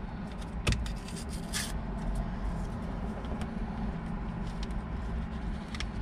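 A small packet of grated Romano cheese being opened: a sharp click, then a short papery rip about a second and a half in, followed by a few faint rustles as the cheese is shaken out. Under it runs the steady low hum of the car cabin.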